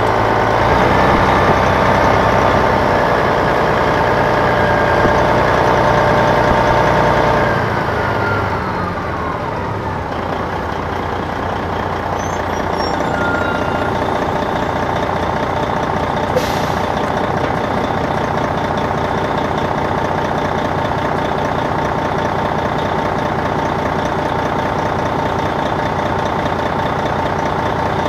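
Detroit Diesel Series 60 diesel of a 2002 MCI D4000 coach, heard on board from the rear, running under load. About seven seconds in the engine note drops and falls in pitch over a couple of seconds, then settles into a steadier, quieter run at low revs. A short click about sixteen seconds in.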